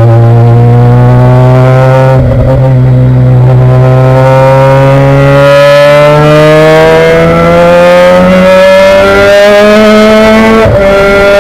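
Race car engine heard from inside the car, accelerating hard with its pitch climbing steadily through a long gear. There is a brief break about two seconds in and an upshift near the end.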